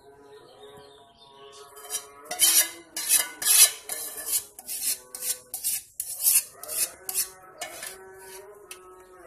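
A spatula scraping the inside of a metal pot, emptying melted chocolate and margarine into a bowl of batter. It makes a rasping stroke about two to three times a second, starting about two seconds in and stopping near the end.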